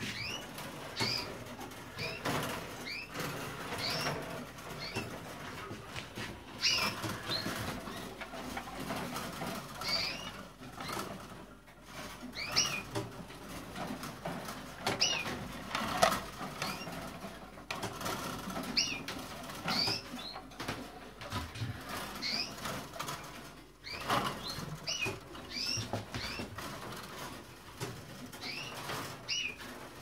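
Caged canaries giving short, rising chirp calls again and again, with wing flutters and small clicks from the birds moving about the wire cage.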